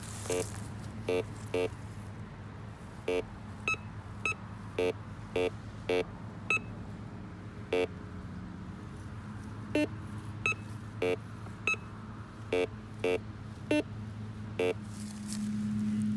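Metal detector giving about twenty short, irregularly spaced beeps, some low and some higher-pitched, as its search coil passes over a freshly dug hole. The beeps are its target-response tones, and a steady low hum runs under them.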